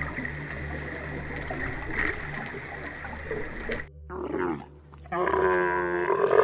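A steady hiss with a low hum, then a brief short call about four seconds in, followed from about five seconds in by a dromedary camel's loud, long, pulsing grunt.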